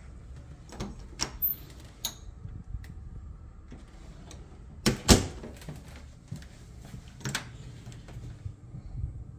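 Closet doors being opened and handled, with a series of clicks and knocks; the loudest is a double knock about five seconds in.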